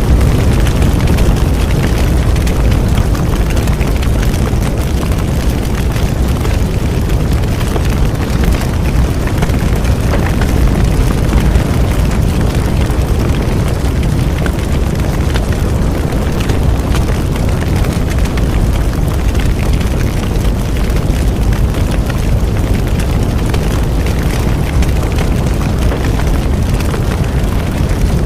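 Large bonfire burning steadily: a constant low rumble of the flames with dense, continuous crackling and small pops from the burning wood.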